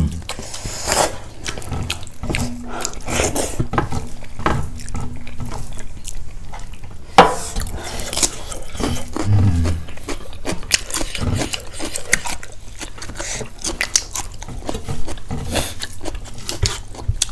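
Close-up eating sounds: chewing and wet mouth noises of dhido and soup, with frequent small clicks of dishes and cutlery and one sharp clink about seven seconds in.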